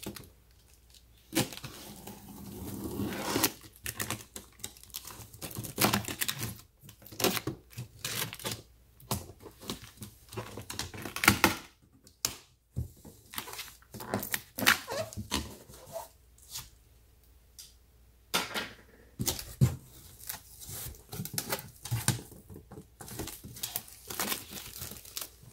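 Cardboard box being opened by hand: a knife slitting the top seam, the flaps pulled back and the contents handled, heard as a long run of irregular scrapes, rips and clicks.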